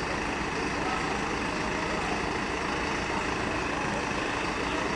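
Engines of the Star and Jelcz fire trucks idling in the station bays, a steady rumble.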